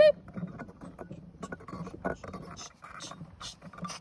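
A plastic toy trailer being towed over a grass lawn, rattling and bumping, with scattered irregular clicks, knocks and scrapes. A loud held voice-like tone cuts off at the very start.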